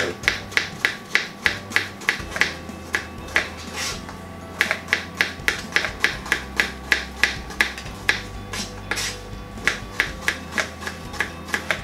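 Kitchen knives slicing apples on plastic chopping boards: quick, sharp taps of the blades striking the boards, several a second, in runs with short pauses, from two people cutting at once.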